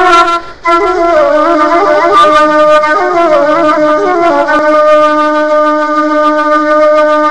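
Background music: a solo woodwind instrument playing a slow melody with sliding ornaments, ending on a long held note, with a brief break about half a second in.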